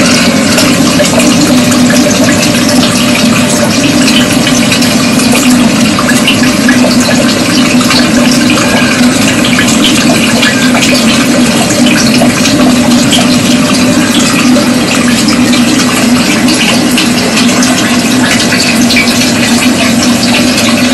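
Aquaponics system running: a steady electric pump hum with water trickling and splashing through the PVC pipes.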